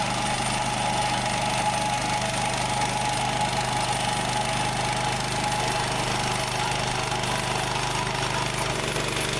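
Janick 1500 wire trencher's engine running steadily under load, its bladed trenching head cutting a 5.5-inch-deep wire trench through hard-packed dirt.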